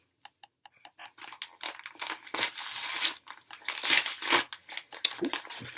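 Mail packaging being torn open and handled: irregular crinkling, rustling and tearing, sparse at first and then steadier and louder from about a second in.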